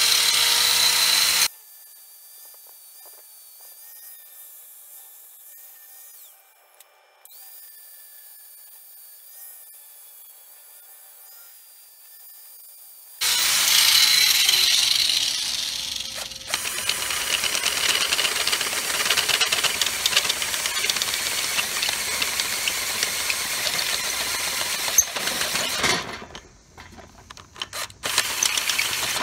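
Angle grinder running for about a second and a half, then cut off. About 13 seconds in, a power tool starts and runs steadily for over ten seconds, and near the end it comes in short broken bursts; by then a cordless drill is boring into the thick steel of a mower blade clamped in a vise. The bit has too little bite for steel this thick.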